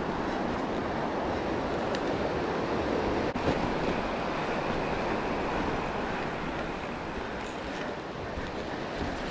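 Steady rushing of wind over the microphone of a camera on a moving mountain bike.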